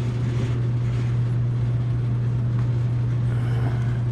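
Oil furnace running: a steady low hum, with a few faint scrapes early on as the filter housing is handled.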